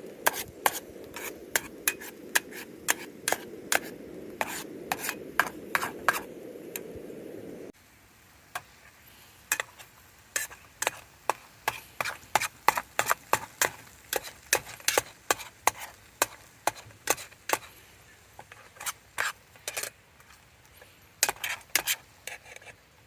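Rapid, regular sharp taps, about three to four a second, like a knife striking a cutting board. Until about eight seconds in, a steady low hum sits under them, and it cuts off suddenly there.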